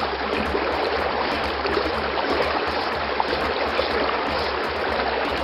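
Steady rush and trickle of shallow river water moving around an elephant lying in it.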